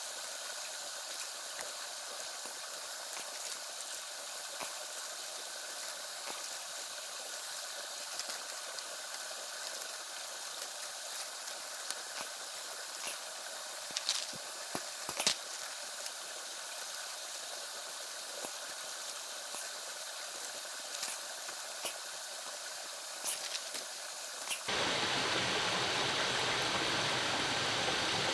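A steady high hiss with scattered sharp clicks and snaps. About 25 seconds in it cuts suddenly to the louder, fuller rush of running water, like a stream.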